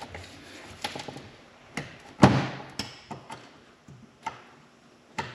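Metal clicks and taps of pliers working inside the steel clutch drum of a transfer case, with one louder clank a little over two seconds in.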